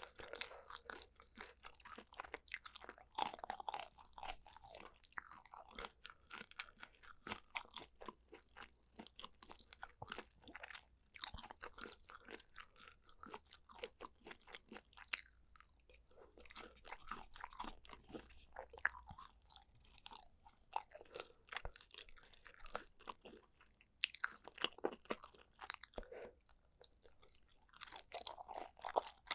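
A person chewing food close to the microphone: a dense, irregular run of sharp crunching, clicking and sticky mouth sounds.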